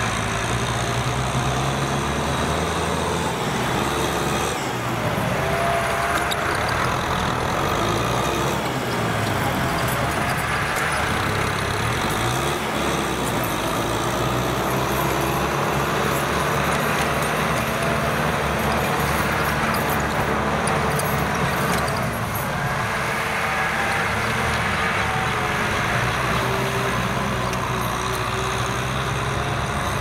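Kubota M6040SU tractor's diesel engine running steadily under load as it drives a rear rotary tiller through field soil, its note wavering slightly up and down.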